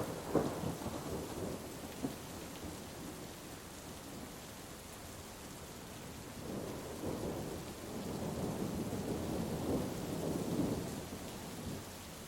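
Thunderstorm: steady rain with a clap of thunder just after the start that rumbles away over about two seconds, then a second, longer rumble of thunder that builds from about six seconds in and dies down near the end.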